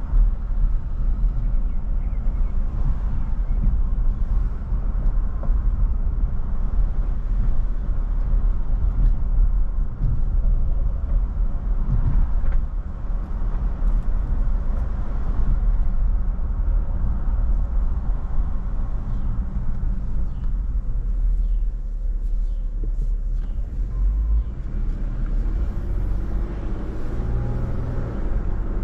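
A car driving along a road: a steady low rumble of tyre and engine noise, with a few faint clicks.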